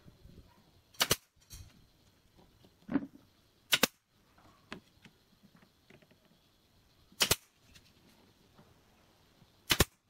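Nail gun firing into pallet-wood roof trim: four sharp cracks a few seconds apart, the second one doubled, with a softer knock just before it.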